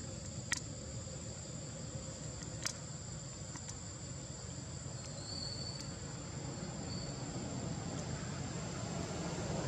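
Steady high-pitched drone of insects, with a fainter second tone beneath it. Two sharp clicks come about half a second and nearly three seconds in, and a low rumble grows louder near the end.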